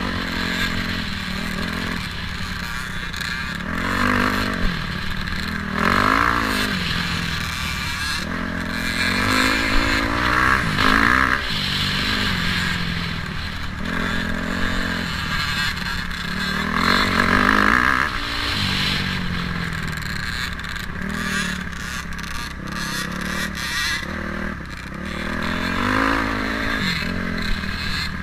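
Dirt bike engine revving up and down again and again as the throttle is opened and closed while riding over rough ground.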